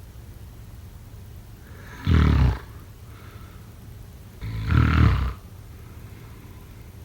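A sleeping person snoring: two loud snores, the first about two seconds in and short, the second a couple of seconds later and a little longer.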